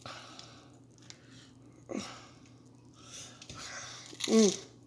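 Close-up eating sounds: a Dorito nacho chip topped with sour cream bitten and chewed with soft crunching. Two brief voiced sounds from the eater break in, one about two seconds in and a louder one near the end.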